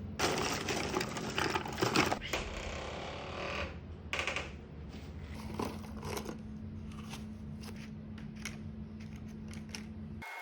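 Waste plastic being handled, crinkling and rustling for the first few seconds, then a run of light clicks and taps, over a steady low machine hum that stops just before the end.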